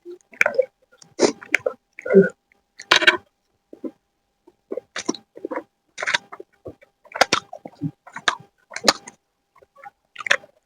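Close-miked eating: a person chewing chicken chowmein, wet chewing and mouth sounds in short bursts about once a second with brief pauses between.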